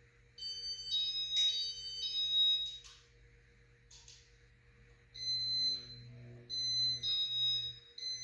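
Casablanca Venus ceiling fan running through a direction reversal in demo mode: a steady low motor hum that grows about five seconds in, under groups of high electronic beeping tones that switch on and off.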